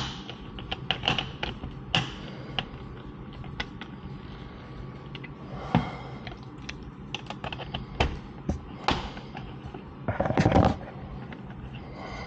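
Hand tools and metal hardware clicking and knocking irregularly as the screws of a license plate bracket are tightened, with a denser run of clicks lasting under a second about ten seconds in.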